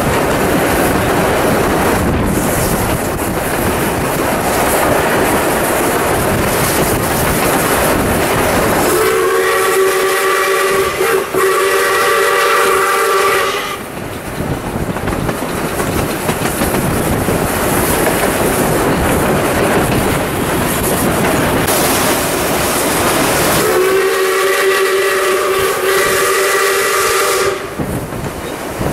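Steam locomotive 621's whistle sounding two long steady blasts, each about four to five seconds, the second some ten seconds after the first. Under them runs the train's steady rushing and rail clatter, heard from a carriage window.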